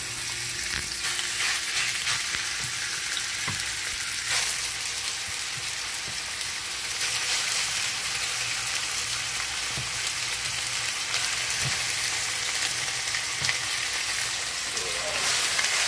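Flour-dredged beef chunks sizzling in hot oil in a wide metal pan as they brown, a steady hiss with a few soft knocks as more pieces are dropped in by hand.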